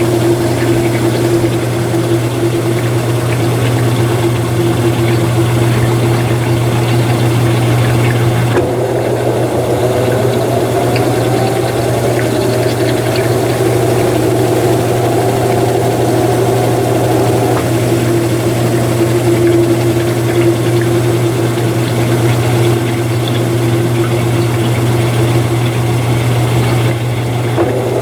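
Mueller Energy 8 kg top-load washing machine running, with a steady low hum and a motor whine that rises in pitch about a third of the way in, holds, then settles back, and begins to rise again near the end.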